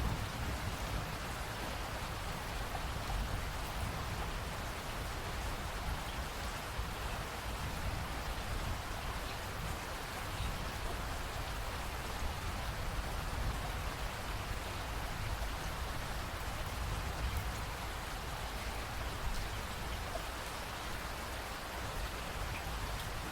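Steady rainfall, an even hiss of drops with a low rumble underneath.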